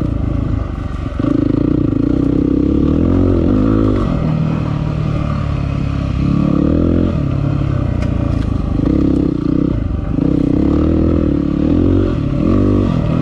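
Yamaha WR250R's single-cylinder four-stroke engine being ridden on a sandy bush track, its pitch rising and falling again and again with the throttle.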